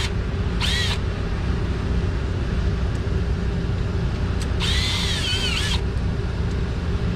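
Cordless power tool with a 10 mm socket spinning off the bolts on a propane line in two short whining bursts, about a second in and again about five seconds in. A steady low hum runs underneath.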